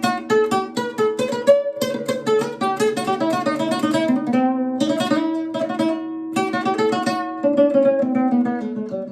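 Acoustic guitar played picado: fast runs of single notes plucked with alternating index and middle fingers, a strong, aggressive attack, with a few louder accented notes.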